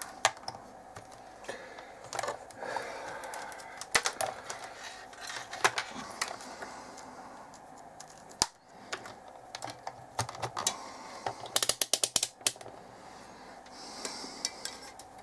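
Scattered sharp clicks and taps, with a quick run of clicks about three-quarters of the way through: a digital multimeter's rotary range selector being turned and its test leads handled.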